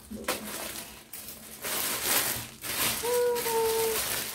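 Clear plastic packaging bag crinkling as it is pulled open and off a backpack, coming in several loud rushes in the second half. About three seconds in, a steady high tone sounds for about a second.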